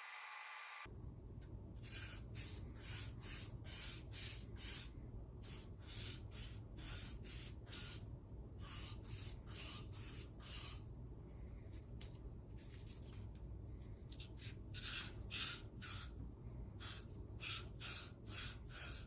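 Sandpaper rubbed by hand back and forth over the corroded hose neck of a thermostat housing, a rhythmic scratchy hiss of about two to three strokes a second, starting about a second in.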